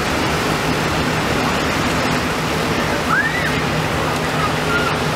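School bus engine running as the bus rolls slowly past, a steady low hum under an even rushing noise.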